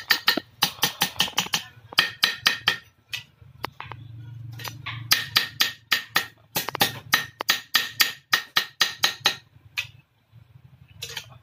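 Hand hammer striking a rubber-tapping knife blade on a steel-plate anvil in quick runs of ringing metal-on-metal blows, about five or six a second, broken by short pauses; the blade is being hammered into its bend.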